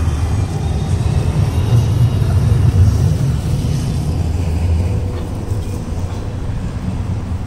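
Low rumble of city street traffic, with a motor vehicle passing close, loudest about three seconds in.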